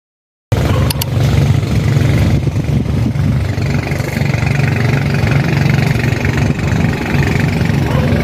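A vehicle's engine running steadily as a low, even rumble, with a couple of sharp clicks about a second in.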